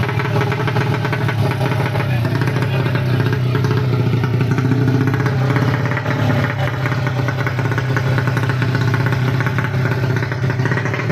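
Four-stroke underbone drag-race motorcycle engine idling steadily, a fast even putter with no clear revs.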